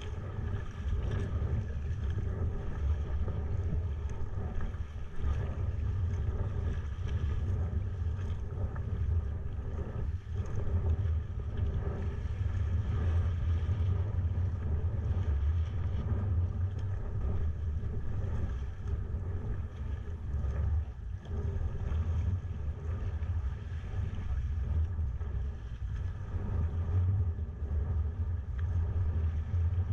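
Wind buffeting the microphone of a GoPro mounted on a sea kayak, heard as a steady low rumble, with the wash of sea water around the kayak as it runs with following waves.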